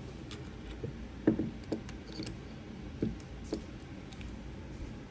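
Small metal parts of a rivet gun being handled and turned as they are fitted back together: about half a dozen scattered light clicks and knocks, the loudest a little over a second in and about three seconds in.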